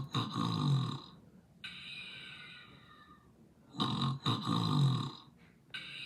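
A person snoring: two loud, rasping snores about four seconds apart. Each is followed by a quieter breath with a faint, slightly falling whistle.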